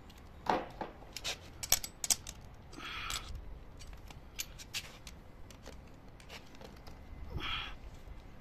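Metal hand tools clicking and scraping on copper tubing clamped in a flaring bar: a quick run of sharp clicks in the first two seconds, a few more later, and two short scrapes, about three seconds in and near the end.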